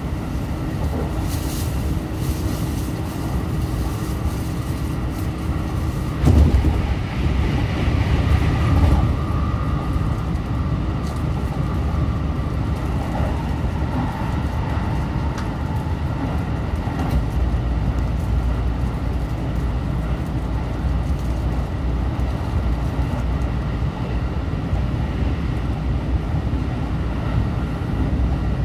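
Running noise of a JR Central 313 series electric train heard from inside the car: a steady rumble of wheels on rail, with heavier knocks about six and eight seconds in and faint whines that come and go.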